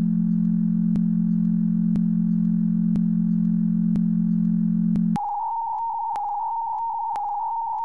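Synthesized electronic tones: a steady low hum with a sharp click about once a second, switching about five seconds in to a higher, quieter tone that flickers rapidly between two close pitches, the clicks carrying on.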